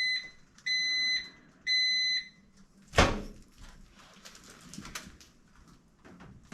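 Whirlpool over-the-range microwave sounding its end-of-cycle beeps, steady single-pitched tones about a second apart, three times, signalling that the heating cycle has finished. About a second later comes a sharp loud click, the door latch releasing as the door is opened, followed by a few light clicks and rattles.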